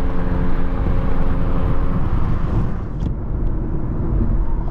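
Infiniti Q50 driving at highway speed: a steady loud rumble of engine and road noise. A faint steady hum stops about two seconds in, and the higher hiss drops away about three seconds in.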